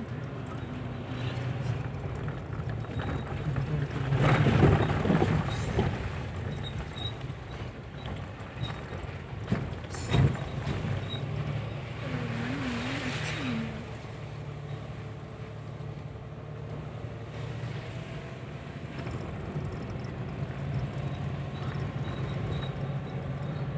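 Car engine and road noise heard from inside the cabin as it drives up a hill road, a steady low hum, with a louder rumble about four seconds in and two sharp knocks about ten seconds in.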